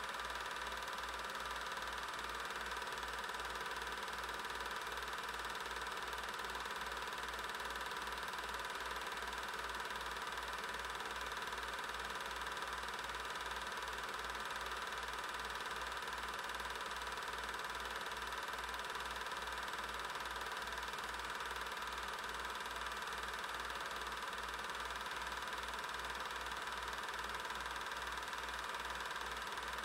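Super 8 film projector running during transfer: a steady mechanical whir with a low pulsing beat about twice a second.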